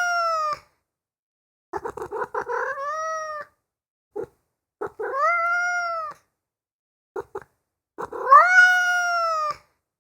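Domestic cat meowing: three long, drawn-out meows about every three seconds, plus the tail of one just before them. Each opens with a short stutter, then rises and slowly falls in pitch.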